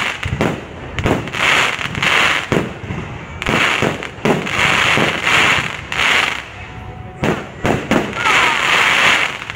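Aerial fireworks going off in quick succession: sharp bangs mixed with short hissing bursts, about one to two a second, with a brief lull a little past the middle.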